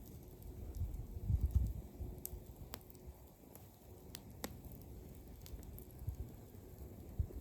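Wood fire crackling, with scattered sharp pops and snaps over a low, uneven rumble that swells about a second and a half in.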